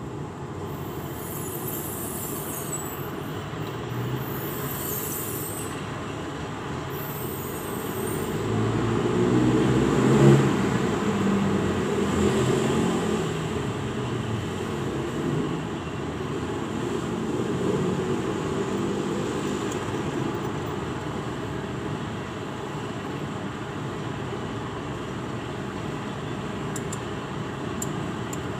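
Steady road traffic noise, with one vehicle's engine passing and swelling loudest about ten seconds in. Three short high hisses come in the first seven seconds.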